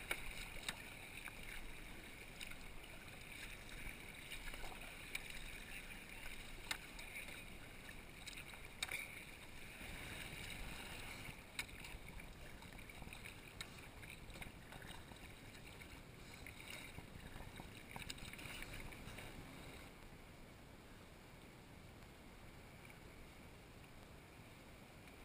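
Water lapping and splashing against a kayak's hull as it is paddled, with occasional sharper splashes from the paddle blade. It gets quieter in the last few seconds.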